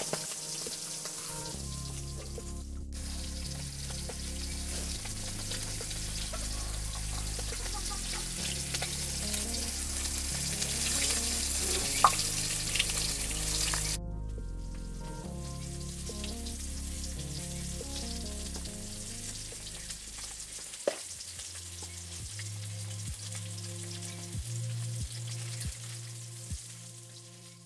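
Food sizzling as it fries in oil, a steady hiss, under background music with a slow bass line. Near the end comes a run of short sharp knocks, about two a second.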